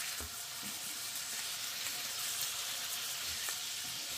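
Minced beef sizzling in an oiled frying pan, a steady hiss, while a burger press is pushed down on a patty through greaseproof paper, with a few faint soft knocks.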